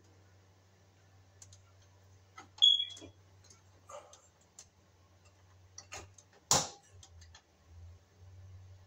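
Scattered light clicks and taps of metal parts being handled and fitted at the thermostat end of an electric baseboard heater while a screw hole is lined up, with a short ringing clink about two and a half seconds in and a sharper click at about six and a half seconds.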